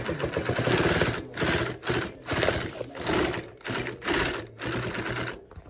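Consew single-needle industrial sewing machine stitching through layers of upholstery fabric in short runs, stopping and starting about half a dozen times, its needle strokes in a quick, even rhythm. The machine is freshly repaired with a new needle and adjustments.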